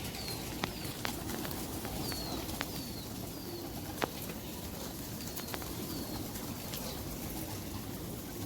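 Domestic pigeons cooing, with short high chirps from birds scattered through and a few sharp clicks.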